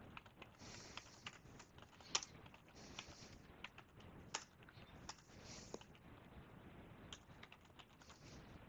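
Computer keyboard typing: faint, irregular key clicks.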